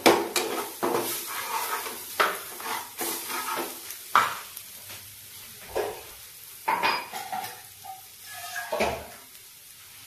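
A metal spatula stirring and scraping a spiced curry mixture sizzling in a frying pan. It starts with a sharp clatter, then knocks and scrapes come every second or so.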